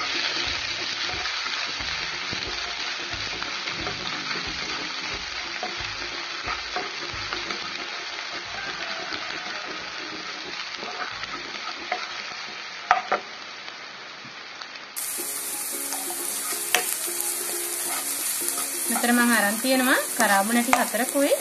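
Chopped onion, dried red chillies and cumin seeds sizzling in oil in a nonstick wok, stirred with a wooden spatula that clicks against the pan a few times.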